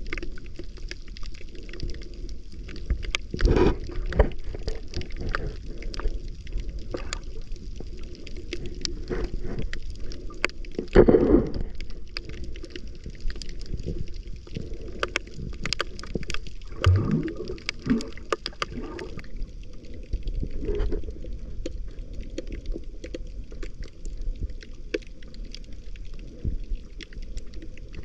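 Underwater sound picked up by a camera below the surface: a steady low rumble of water with many small clicks and crackles scattered through it. There are a few louder swells of water noise about 3 s, 11 s and 17 s in.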